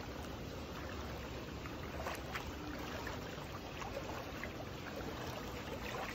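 Footsteps wading through shallow floodwater, faint sloshing and small splashes over a steady low wash of water.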